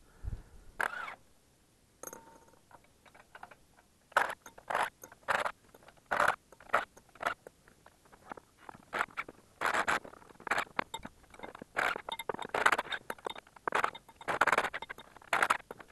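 Tools on the nuts of a steel pressure test chamber's bolted lid as the lid is undone after the test: a series of short, irregular bursts of mechanical tool noise, starting about four seconds in.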